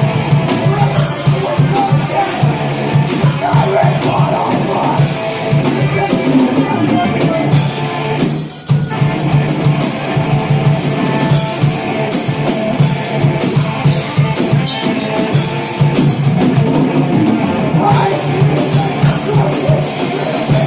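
Live rock band playing at full volume: drum kit and guitars, with a brief stop about eight seconds in before the band comes straight back in.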